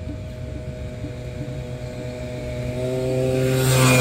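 Motorcycle engine running at a steady pitch, growing louder toward the end.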